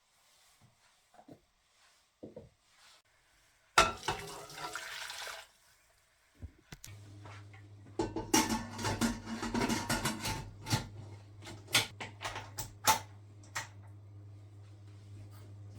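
Kitchen work sounds: a sharp knock followed by about a second and a half of rushing water. From about seven seconds in, dishes and utensils clink and clatter over a steady low hum from an appliance.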